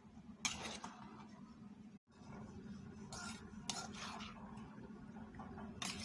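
A metal spoon scraping and clinking against a mortar as papaya salad is tossed and mixed, with a few sharper clinks, over a steady low hum.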